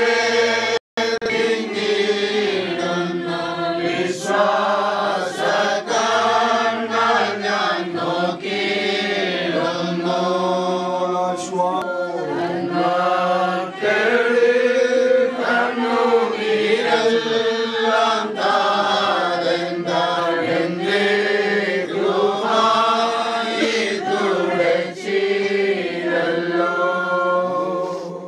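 A group of voices singing a slow Christian hymn together in long held notes, with a split-second break about a second in.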